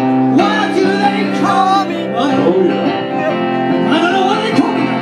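Live band music: electric guitar with a voice singing a melody over it.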